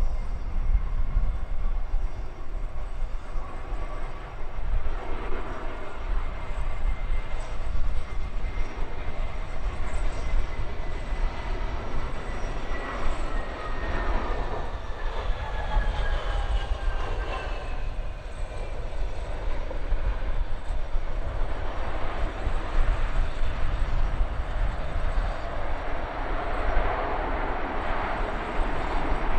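Jet airliner passing, its engine whine falling slowly in pitch as it goes by, over a steady low rumble.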